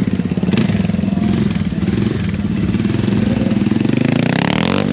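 Stunt motorcycle engine running close by at varying revs, then revved hard near the end, its pitch climbing sharply.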